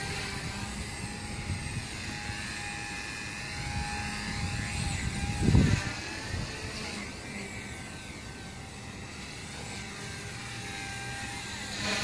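ALIGN T-REX 150 micro electric RC helicopter flying, its motors and rotors making a whine that rises and falls in pitch as it manoeuvres. Wind buffets the microphone throughout, with one loud gust about halfway through.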